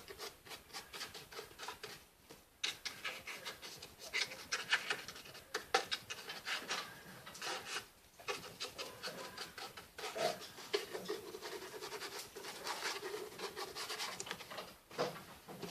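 Dry paintbrush scrubbing paint onto cardboard in quick, uneven strokes. A low steady hum joins for a few seconds past the middle.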